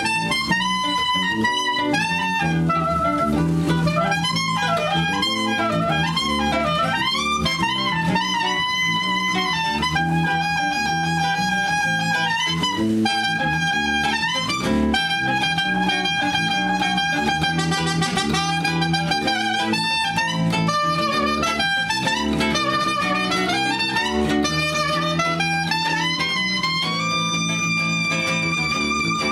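Live instrumental jazz: saxophone playing a melody of long held notes over acoustic guitar and six-string bass. Near the end the saxophone climbs and holds a long high note.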